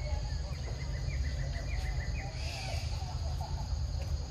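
Forest ambience: a steady high insect drone with a bird giving a quick run of short chirps in the first two seconds, all over a constant low rumble.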